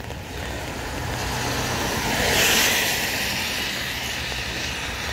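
A car passing on a wet road: its tyre hiss swells to a peak about halfway through and then fades as it moves away.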